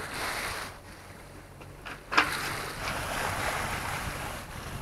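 Water rushing and splashing along a sailboat's hull as it moves through the sea, with wind on the microphone. A sudden sharp sound about two seconds in, after which the rush of water is louder; a faint low hum runs underneath.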